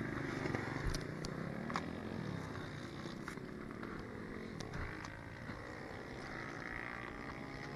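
Pit bike engines running out on the circuit, their pitch rising and falling as they rev through the laps, with a few light clicks close by.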